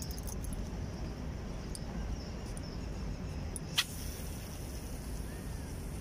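Steady low rumble of outdoor background noise, with one sharp click a little before four seconds in.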